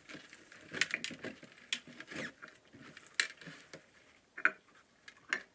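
Super sticky slime being squished and pulled by hand, giving irregular wet clicks and pops.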